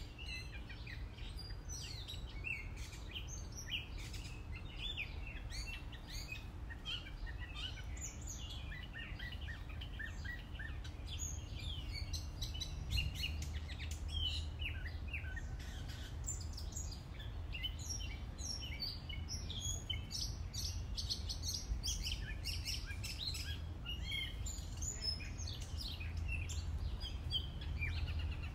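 Several birds chirping and calling, many short high chirps overlapping one another, over a low steady rumble.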